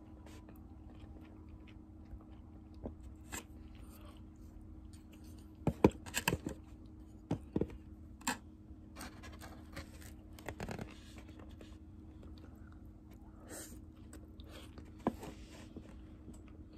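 Eating from a plastic takeout tray with chopsticks: scattered clicks and scrapes of the chopsticks against the tray, with chewing, loudest in a quick cluster about six seconds in. A faint steady low hum runs underneath.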